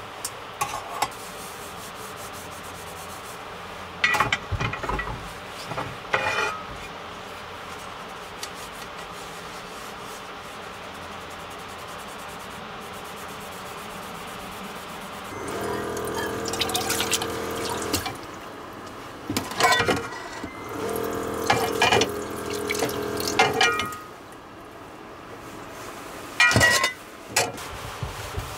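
Small metal camping cookware being handled and put away on a wooden table: a few sharp clinks of cups and lids, and two longer stretches of rubbing and scraping as pieces are wiped and stacked, over a steady background hiss.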